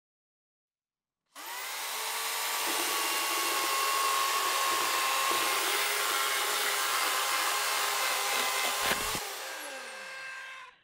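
Electric circular saw starting up and cutting through a wooden board, its motor running with a steady whine. Just before the end there is a knock as the off-cut drops, and the motor is released and winds down, its pitch falling.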